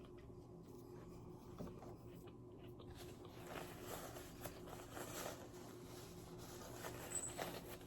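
Faint chewing of fast food, with soft crackly mouth sounds and a few small clicks, over a steady low room hum.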